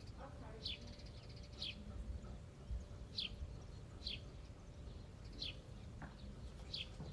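A small bird chirping repeatedly: short, high, falling chirps about once a second, over a faint steady hum.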